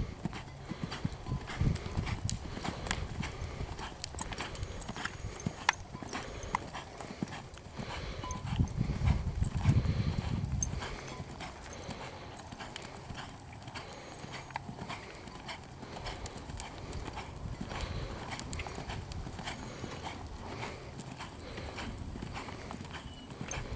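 Quarter horse mare's hooves striking the sand of an arena at a lope, a running series of soft hoofbeats, with a louder stretch near the middle.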